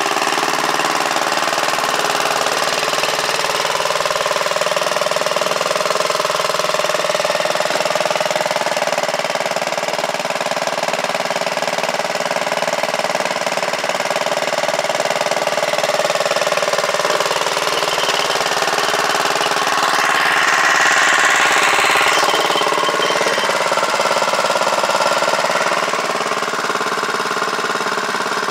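Small Wheel Horse garden tractor engine running steadily as the tractor drives, with a brief louder, harsher swell for about two seconds about two-thirds of the way through.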